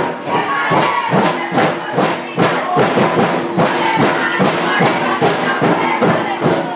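Music with busy percussion, steady and loud.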